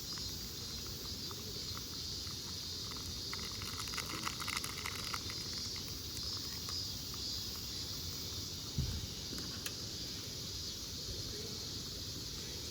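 Steady outdoor insect chorus, with a patch of faint light clicks and taps about three to five seconds in.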